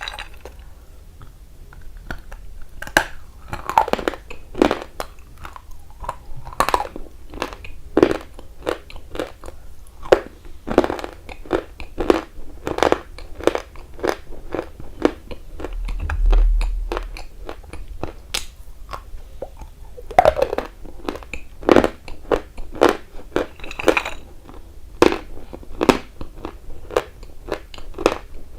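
A person biting and chewing something dry and hard close to the microphone, with sharp crunches about once or twice a second. There is a low thump about halfway through.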